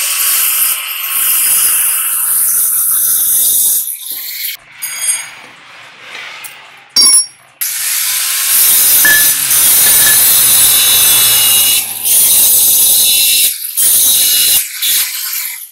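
Electric angle grinder grinding steel on a truck V-bar bearing cap. It runs in long stretches with a lull of a few seconds in the middle and short breaks near the end.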